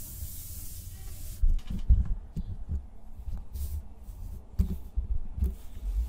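Steady hiss, then from about a second and a half in, irregular low thumps and rubbing as hands handle a desktop microphone on its stand and brush the wooden desk right beside it.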